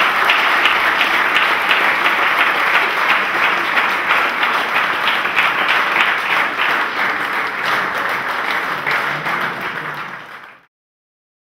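Audience applauding: many people clapping together steadily. The applause eases off and cuts off near the end.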